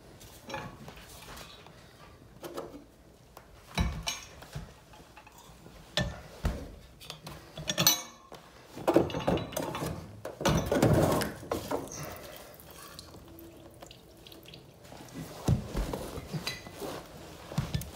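Finned steam convector radiator element being handled and set into its cabinet: scattered metal clanks and knocks, with a longer scraping rattle about nine to eleven seconds in.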